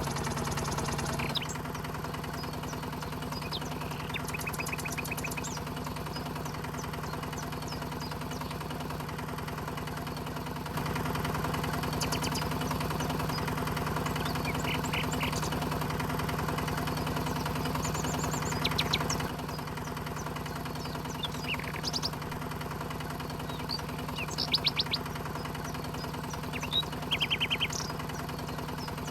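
Small motor of a DIY miniature tractor running with a steady hum, its level stepping down about a second in, up about eleven seconds in and down again near nineteen seconds, as the load changes. Brief high chirps sound over it now and then.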